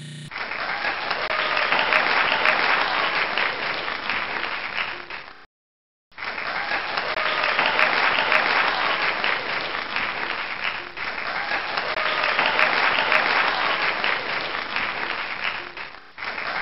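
Crowd applause, dense and steady. It cuts out completely for about half a second a little over five seconds in, then starts again.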